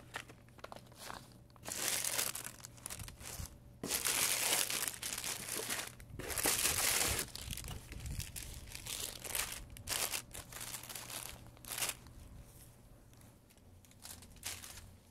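Repeated bursts of crinkling and rustling, each lasting a second or two, as a plastic bag of bulbs and dry fallen leaves are handled while planting. The longest and loudest bursts come in the first half.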